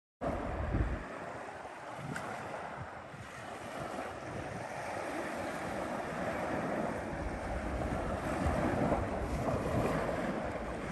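Sea waves washing on the shore, with wind buffeting the microphone in low rumbling gusts.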